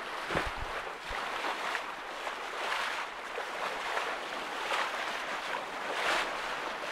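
Water rushing and splashing along the hull of a Westerly Centaur sailing yacht moving fast under sail, the rush swelling and easing every second or so as it meets the waves. A few low wind buffets hit the microphone about half a second in.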